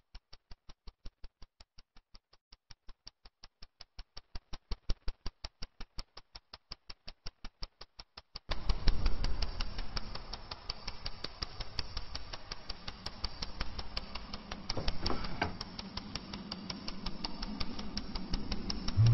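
Rapid, evenly spaced clicks, about seven a second, growing louder and then softer. About eight and a half seconds in they give way abruptly to a dense crackling hiss.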